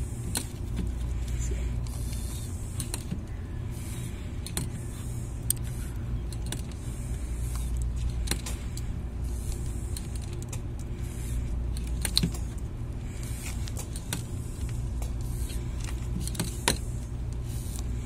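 Hand-operated oil pump being stroked to push refrigeration oil from a jug into a scroll compressor, with a few sharp clicks, over a steady low mechanical hum.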